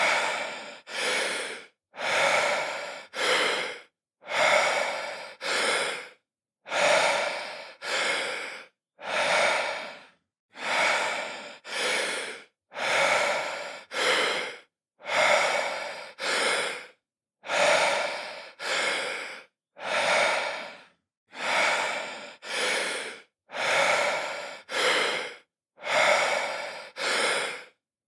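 A man breathing deeply in and out, one breath in and one out about every two seconds in an even, steady rhythm. Each breath starts loud and fades, with dead silence between breaths.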